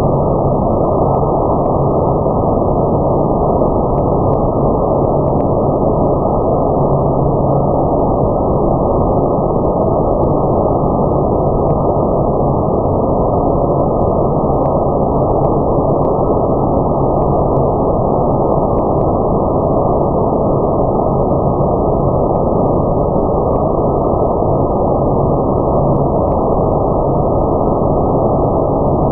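Automatic car wash running, a steady, loud rushing noise with a faint low hum and a few faint ticks.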